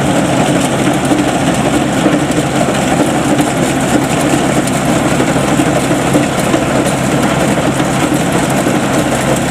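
Home-built Vietnamese combine harvester running steadily under load in the paddy, its diesel engine and threshing machinery making a continuous loud drone with clatter.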